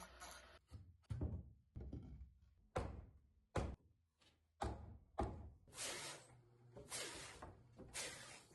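A series of about ten sharp knocks at irregular intervals, each dying away quickly.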